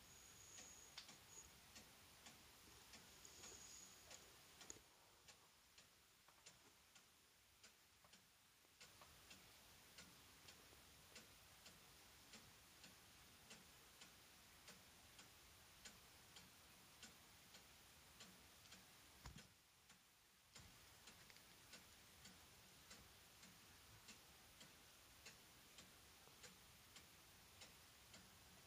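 Near silence with a faint, regular ticking.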